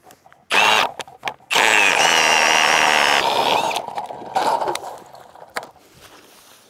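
Cordless drill spinning an ice auger into the ice, with a motor whine: a short burst about half a second in, then about two seconds of steady drilling, and one more brief burst a little after four seconds.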